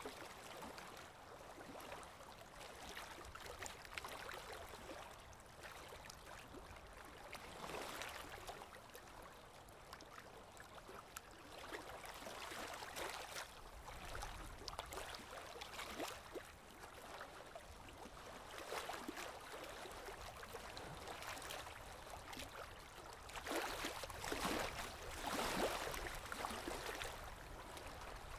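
Faint river water lapping and splashing against a rocky shoreline, coming in uneven soft surges, the loudest a few seconds before the end.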